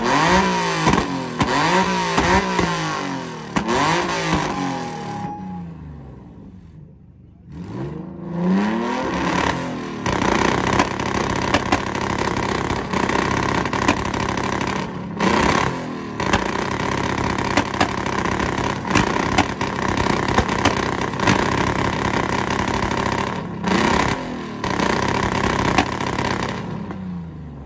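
Infiniti car's engine revving in a string of quick blips for about five seconds, then dropping away briefly. From about ten seconds in it is held steady on the two-step launch limiter, a rapid stuttering note from the exhaust on both sides of the car, until it cuts off near the end.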